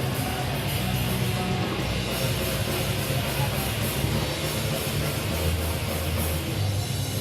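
Thrash metal band playing live: heavily distorted electric guitars, bass and a pounding drum kit, loud and dense, as picked up by a camera microphone in the crowd.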